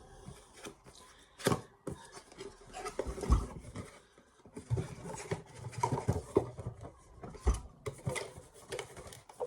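A box being handled and opened: irregular rubbing and scraping with scattered knocks, a few of them sharper than the rest.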